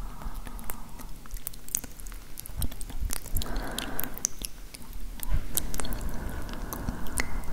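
Close-miked ASMR mouth sounds: many wet lip and tongue clicks and smacks right at a handheld recorder's microphone, with stretches of soft breathy hiss between them.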